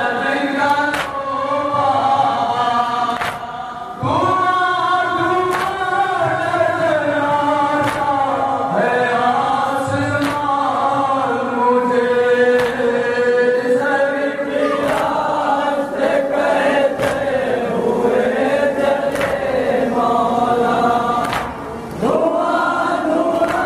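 A group of men chanting a noha in unison, with rhythmic matam: palms striking chests about once a second. The chanting breaks off briefly about four seconds in and again near the end.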